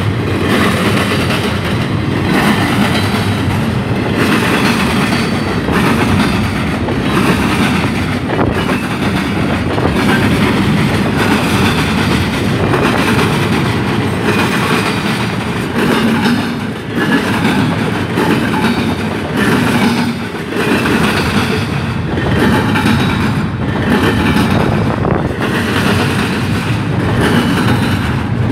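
Double-stack intermodal container train rolling past: the steel wheels of the well cars clack rhythmically over the rail joints over a steady, loud rumble.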